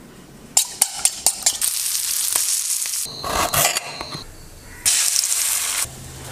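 Kitchen sounds: a utensil clicking against a bowl in quick strokes, then food sizzling in a hot frying pan, the sizzle loudest about five seconds in and cutting off suddenly.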